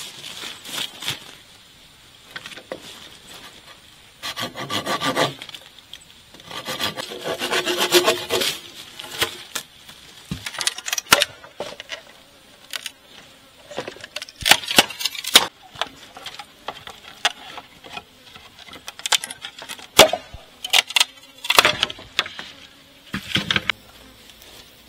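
Green bamboo poles being handled and knocked together: repeated sharp knocks and clatters, with two longer scraping passes about four and seven seconds in.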